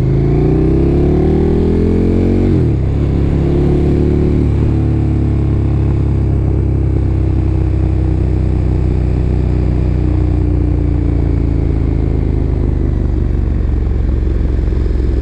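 KTM motorcycle engine heard from the rider's helmet microphone. The revs climb for about two and a half seconds, drop sharply, then hold steady at a lower engine speed while cruising.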